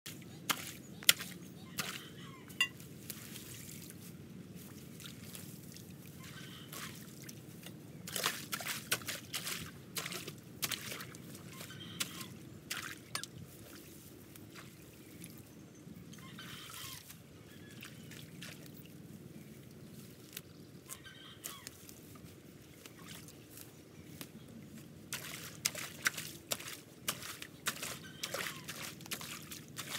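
Muddy water trickling and pouring along a concrete drainage channel, with scattered sharp clicks and scrapes from a long-handled hoe working in the water and weeds, bunched in two busy spells.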